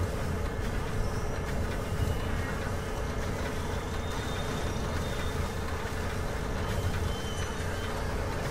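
Small electric gear motors of an HO scale animated model crane running as the boom and hook lower: a steady hum over a low rumble, with a faint higher whine now and then.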